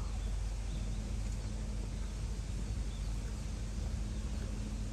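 Outdoor ambience: a steady low hum under even background noise, with a few faint, short, high bird chirps.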